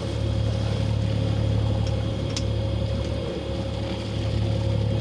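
Sailing yacht's inboard engine running steadily under way, a constant low hum, with a faint click about two and a half seconds in.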